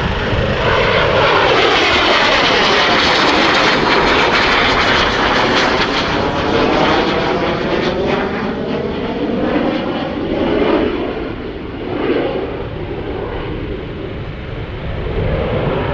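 Cessna A-37B Dragonfly's twin General Electric J85 turbojets making a loud jet pass. The noise peaks in the first few seconds with a sweeping, swirling tone as the jet goes by, then grows duller and fades slightly as it draws away.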